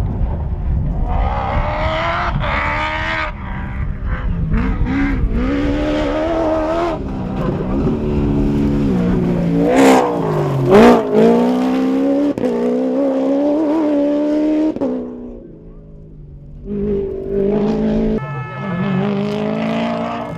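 Ford Ranger rally-raid race truck driven hard on a dirt track, its engine revving up and falling back again and again through gear changes. It is loudest as it passes close about ten seconds in, fades briefly past the middle, then revs again near the end.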